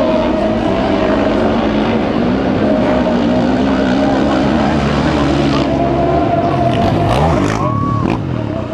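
Several sidecarcross outfits racing on a motocross track at full throttle, their engines overlapping and revving up and down as they hit the jumps and corners.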